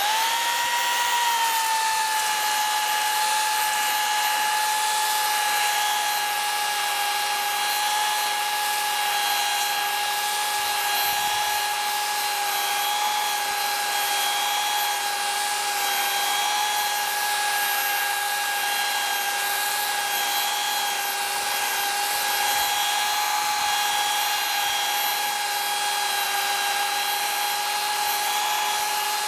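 Handheld electric belt sander starting up and then running steadily on a wooden window sash patched with epoxy filler. Its motor whine rises at switch-on, settles a little lower, and holds steady over the rasp of the belt on the wood.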